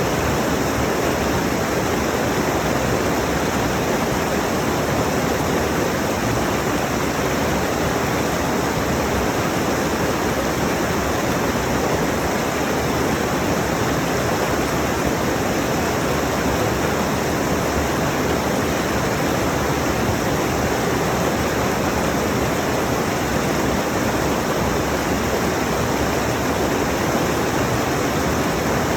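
Mountain stream rushing over rocks, a steady full water roar that does not change.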